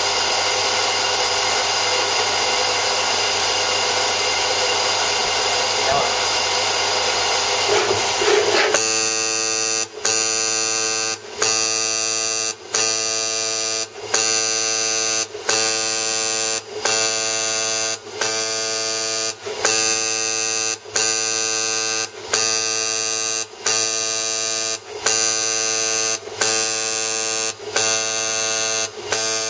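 Piezo jetting valve of an automatic dispenser buzzing steadily while jetting liquid underfill under BGA and LGA chip packages. About 9 s in the buzz changes pitch, and from then on it breaks off briefly about every second and a half.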